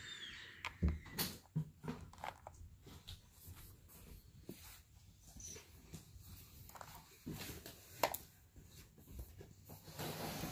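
Faint, scattered small clicks and taps of plastic action figures being handled and propped against a toy vehicle.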